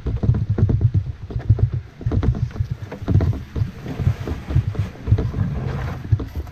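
Footsteps on a wet dirt trail and the knocking and creaking of a canoe carried overhead on a portage, heard from under the hull. A softer rustle, like the hull or a pack brushing through brush, rises about four seconds in.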